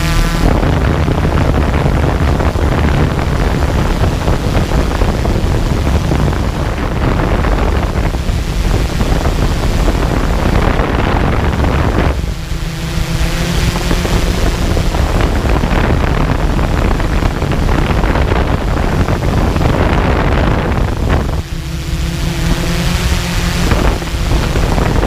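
Hexacopter drone hovering, its rotor hum mixed with loud wind rush on the microphone; the rotor hum comes through clearly about twelve seconds in and again near the end.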